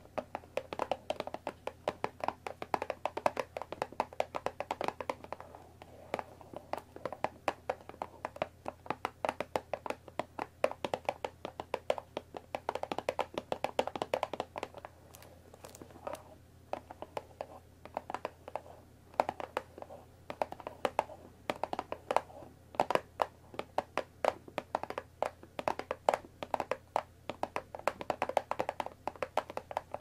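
Long fingernails tapping rapidly on a cardboard tea box, in quick flurries of light clicks broken by short pauses.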